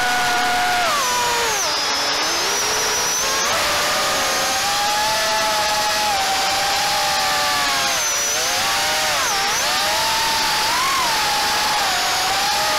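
Diatone GT R349 HD FPV quadcopter's brushless motors and propellers whining in flight, heard from the onboard camera. The pitch falls and rises with the throttle: a sharp drop about a second in that climbs back by about three and a half seconds, two quick dips around eight and nine seconds in, then a steady whine.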